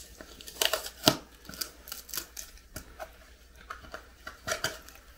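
Small cardboard gift box being opened by hand: irregular scraping and sharp clicks of the card flaps and lid, the loudest about a second in.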